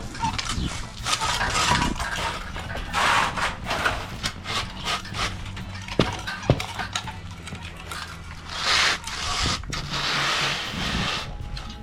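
Concrete groover scraping through wet concrete in repeated strokes, cutting control joints, over a steady low hum. Two sharp knocks about six seconds in.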